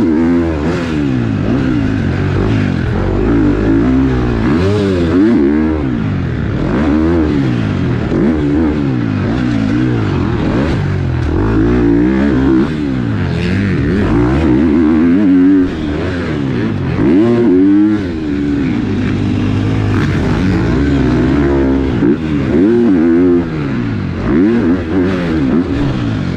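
KTM four-stroke single-cylinder motocross bike engine, heard close up from the bike, revving up and dropping off again and again every second or two as the throttle is opened and chopped around the dirt track.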